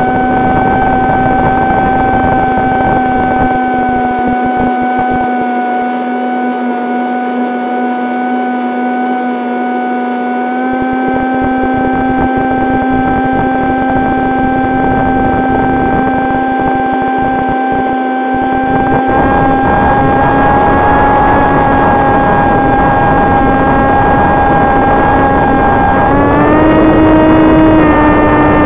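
Electric motor and propeller of an AR900 FPV flying wing droning at a steady pitch in flight, stepping up in pitch near the end as the throttle is raised. Wind rumble on the onboard microphone comes and goes underneath.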